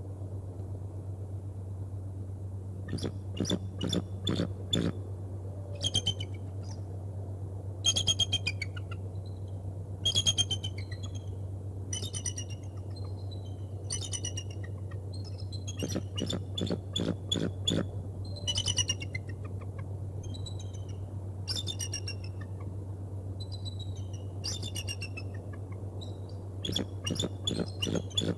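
Bald eagle calling: repeated series of high, thin chattering whistles, some notes falling in pitch, coming in bursts throughout. A steady low hum runs underneath.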